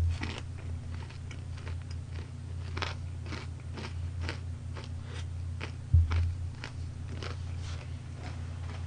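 Chewing crispy fried chicken, with crunches about twice a second over a steady low hum, and one loud low thump about six seconds in.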